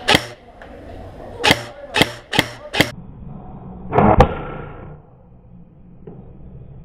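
Airsoft electric rifle firing single shots: five sharp cracks at uneven intervals, with a louder, noisier burst of fire about four seconds in.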